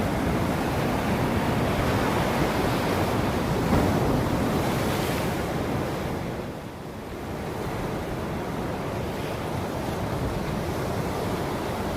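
Ocean waves breaking and washing on a shore in a steady rush, easing off a little past halfway before the next wave builds.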